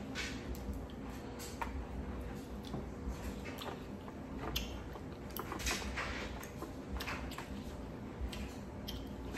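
Close-up eating sounds of a seafood boil being eaten: irregular wet clicks, smacks and chewing noises.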